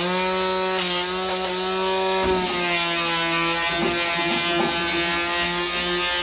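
Electric mouse sander starting up suddenly and running steadily, a humming motor over the hiss of 220-grit paper on walnut. Its pitch dips slightly about two seconds in.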